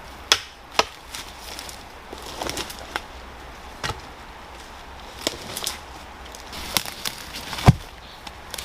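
A hand tool chopping wood in irregular single strikes, about seven sharp knocks with the loudest near the end.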